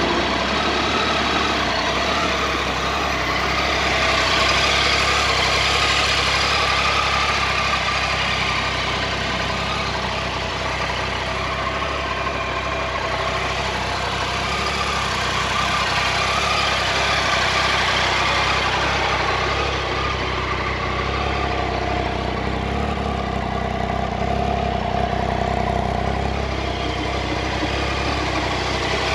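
2015 Triumph Tiger 800 XCx's 800 cc inline three-cylinder engine idling steadily, freshly started.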